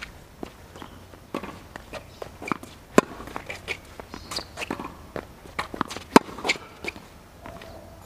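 Tennis rally on a hard court: sharp pops of a tennis ball struck by rackets and bouncing, among the players' footsteps on the court. The loudest hits come about three and six seconds in.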